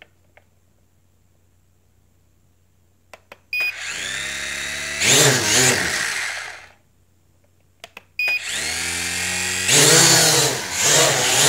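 ProMark VR toy quadcopter's four motors and propellers spinning up to a loud whine, its pitch rising and wavering with the throttle. The whine starts about three and a half seconds in, cuts out about seven seconds in, and starts again a second later as the drone lifts off in its higher speed mode.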